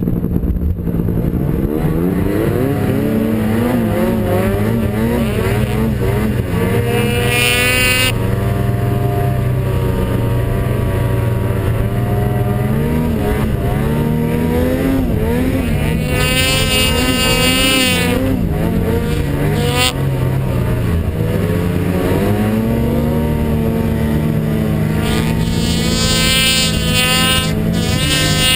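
Snowmobile engine running hard in deep snow, its revs rising and falling repeatedly, with several surges to high revs that bring a rising whine.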